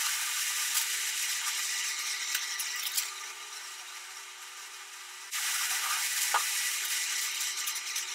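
Steady hiss of background noise with a few faint clicks. It drops quieter about three seconds in and comes back about two seconds later.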